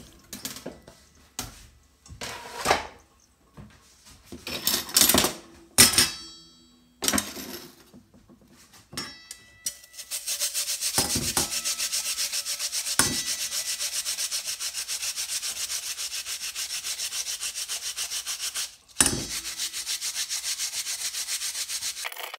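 Radish grated on a plastic grater over a stainless steel bowl. Knocks and clatter from the bowl being handled come first. About ten seconds in, fast, even rasping strokes begin, with a brief pause and a knock near the end.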